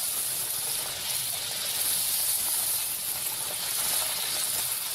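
Bathua kachauri deep-frying in hot oil in a kadhai: a steady, high sizzling hiss as the dough puffs and crisps.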